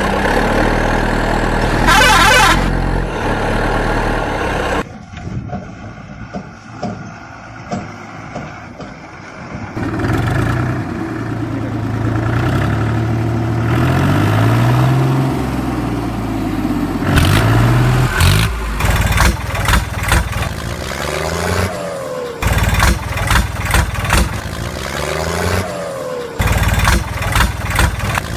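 Tractor engine running and revving, its pitch rising and falling several times. It drops quieter for a few seconds after about five seconds in, and turns choppy with repeated chugs in the last third.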